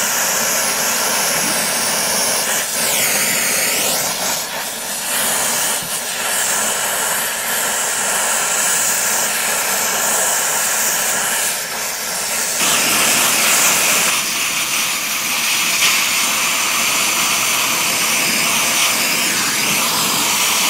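Brazing torch flame hissing steadily as it heats a copper suction-line joint; the sound grows fuller about twelve seconds in.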